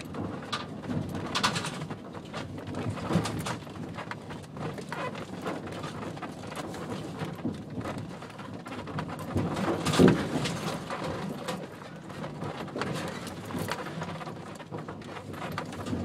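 A vehicle driving slowly over a rough dirt track: a steady low rumble with irregular knocks and rattles from the bumps, the loudest jolt about ten seconds in.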